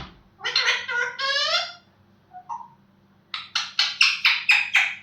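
Pet parrot vocalising: two wavering calls that sweep up and down in pitch in the first two seconds, then after a pause a rapid run of short clipped notes, about six a second.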